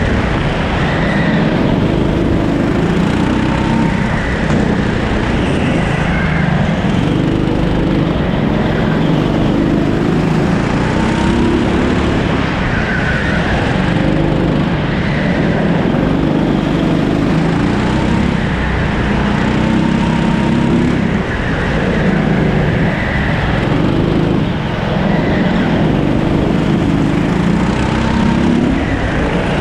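A Rimo rental kart's 13 hp engine, heard on board, revving up and dropping back again and again as the kart accelerates out of corners and lifts into the next ones.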